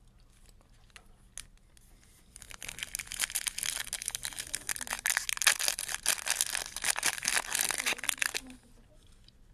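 Foil wrapper of a Topps Chrome trading card pack crinkling and tearing as it is ripped open by hand: a dense run of crackles that starts about two seconds in and stops about a second before the end.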